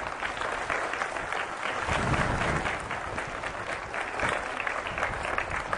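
An assembly of schoolchildren applauding, many hands clapping steadily.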